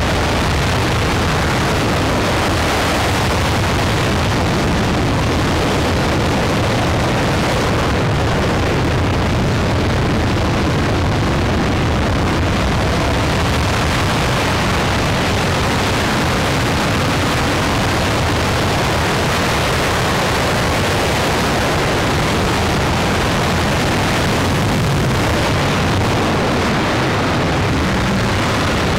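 RS-25 liquid-hydrogen/liquid-oxygen rocket engine, a former space shuttle main engine, firing steadily during a ground test: a loud, even rushing noise that holds level throughout.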